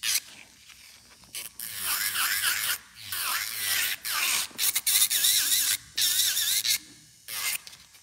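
Electric nail drill with a white cone-shaped bit grinding acrylic nail extensions in repeated short passes, a high-pitched grinding whose pitch wavers as the bit presses on and lifts off the nail, with brief quieter gaps between passes.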